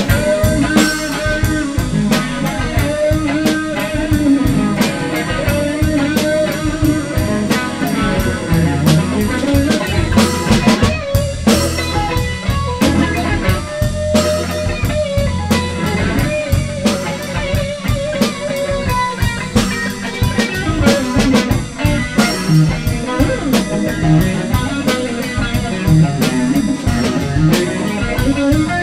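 Live blues-rock band playing an instrumental passage: electric guitar over a drum kit, with no vocals.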